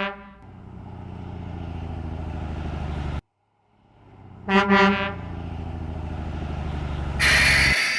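Truck horn honks, then a truck engine runs and builds up, cutting off about three seconds in. The sequence repeats with a second honk about four and a half seconds in and the engine again, ending in a short burst of air hiss near the end.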